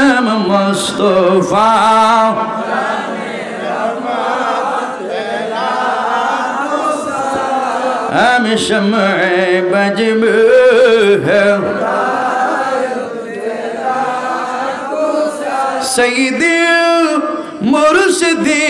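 A man singing an Islamic devotional song (a naat of salutations to the Prophet) into a microphone, amplified, in long, drawn-out, wavering notes without a break.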